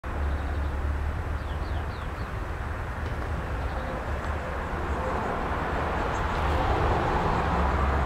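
Steady low rumble with an even noisy hiss over it, and a few faint, short, high chirps from a small bird about one and a half to two seconds in.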